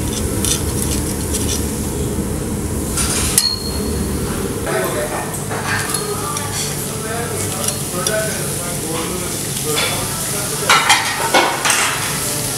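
Beef tenderloin steaks sizzling on a hot grill, with metal tongs clicking against the grate as the meat is moved. There is a cluster of louder metallic clinks near the end.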